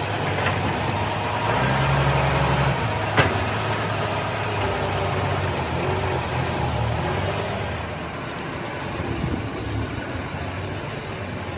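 A vehicle engine running steadily at idle, swelling briefly about two seconds in, with a single sharp knock about three seconds in.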